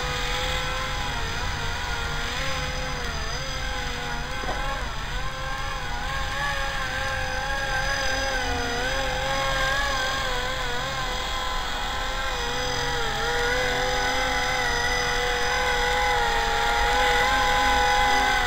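Esky HB CT electric RC helicopter hovering and flying low: a steady motor-and-rotor whine whose pitch wavers up and down as the throttle is worked.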